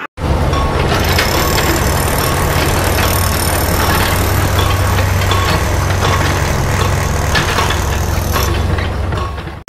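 Electric scalp massager's motor running with a loud, steady buzz and low hum.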